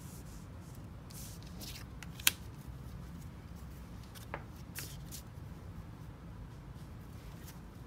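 Magic: The Gathering cards being handled on a table: soft scattered rustles and slides of card stock, with one sharp tap a little over two seconds in, over a low steady hum.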